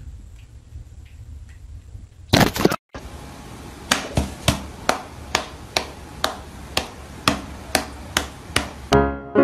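A hand slapping playfully at a cat standing on its hind legs: an even run of sharp slaps, about two a second. A short, loud burst comes about two and a half seconds in, before the slapping starts.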